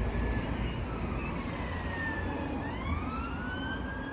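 Emergency vehicle siren wailing, its pitch sliding slowly down for a couple of seconds and then rising again, over a steady low rumble.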